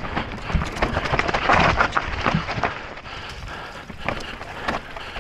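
Electric mountain bike rattling and clattering down a rocky, loose trail at speed: tyres crunching over gravel and stones, with many sharp knocks from the bike and wind on the microphone. The clatter is loudest about a second and a half in.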